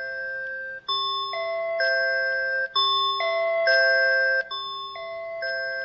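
A smart doorbell chime playing its three-note tone (low, high, then middle note), which sounds like a cruise ship, over and over about every two seconds while its volume is being set: it gets louder through the middle, then drops quieter about four and a half seconds in.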